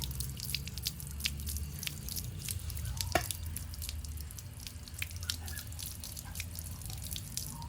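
Water dripping and splashing in irregular drops as small stones are rinsed out of bay leaf seedlings' root balls, with one louder splash about three seconds in. A steady low hum runs underneath.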